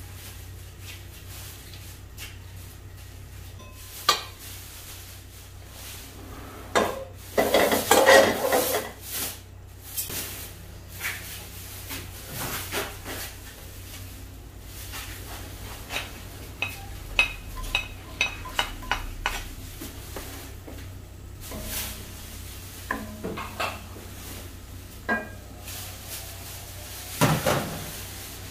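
Kitchen clatter at a nonstick wok: scrapes and clicks of a wooden spatula and a plate as chopped onion and garlic go into hot olive oil, with a light sizzle. The loudest stretch comes about eight seconds in, then a quick run of clicks, and another scrape near the end, all over a steady low hum.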